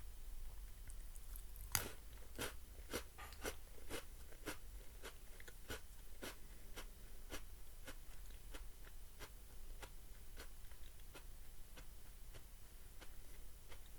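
A person chewing crunchy food close to the microphone: a run of sharp crunches, loudest and most frequent for a few seconds about two seconds in, then fainter and sparser.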